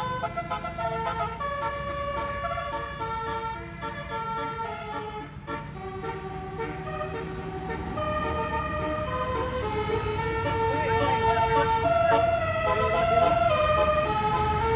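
Multi-trumpet 'telolet' bus air horn playing a tune of held notes that change pitch about every half second, with the bus's engine running low underneath. It grows louder in the second half.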